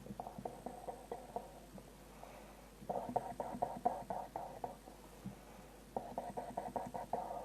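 Breathing through a cough-treatment inhaler. Three bursts of rapid gurgling pulses come about three seconds apart, one with each breath.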